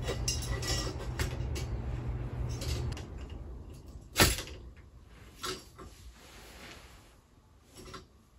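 Metal poles of an animatronic's stand being handled and fitted together, with rustling and small knocks and one sharp clack about four seconds in.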